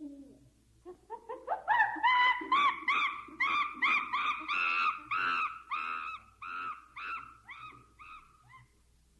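A series of about fifteen high, hooting animal calls, about two a second, climbing in pitch over the first few calls and then fading out.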